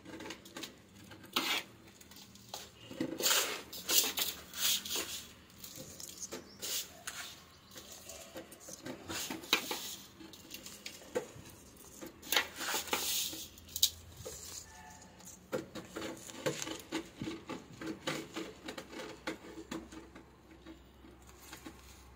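Hand pressing and patting down loose, crumbly potting soil in a cement pot, firming it to close air gaps around the roots: irregular scratchy rustles and scrapes of soil and skin against soil and the pot rim, easing off near the end.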